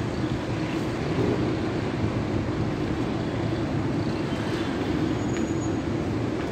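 Steady low rumble of outdoor city ambience, traffic and air noise, with no single event standing out.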